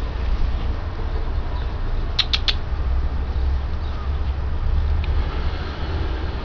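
Steady low rumble of wind on the microphone, with three quick high chirps about two seconds in.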